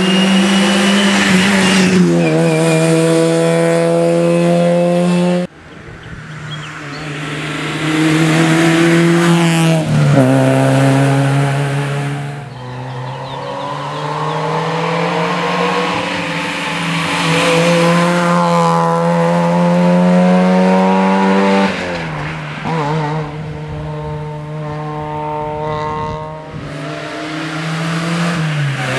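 Rally car engines run at high revs as the cars pass at speed on a tarmac stage, with the engine note stepping down and rising again through gear changes and lifts. The sound changes abruptly twice, about five seconds in and again near 22 seconds, where one car's pass gives way to the next.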